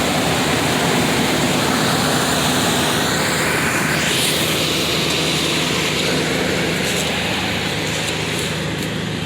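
A 2004 Ford Ranger's engine idling steadily, its exhaust chugging. The engine is running smoothly and well.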